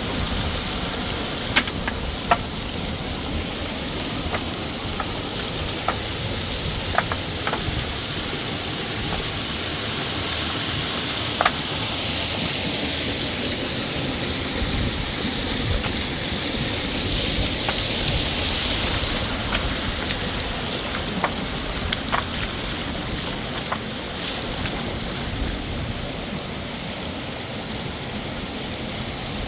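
River water flowing steadily, a continuous rushing noise, with a few light knocks or clicks scattered through it.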